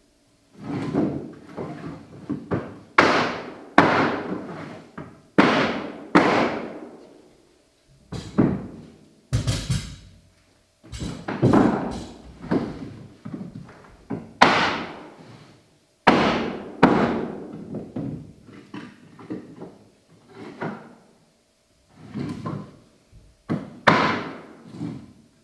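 Repeated heavy blows, irregular and roughly one a second, each with a short ringing tail: hardwood floorboards being hammered into place during installation.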